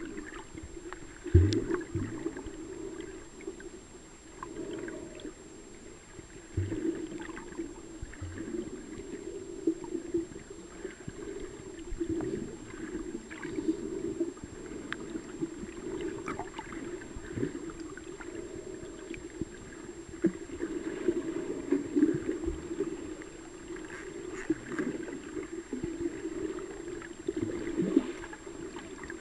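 Muffled underwater water noise picked up by a camera held below the surface while snorkelling, with a few sharp knocks and a faint steady high whine.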